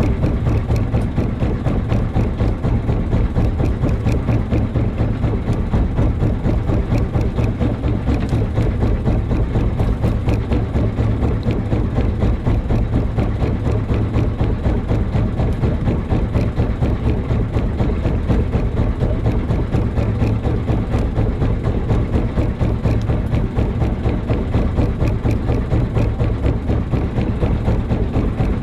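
Small fishing boat's engine idling with a steady low drone that does not change.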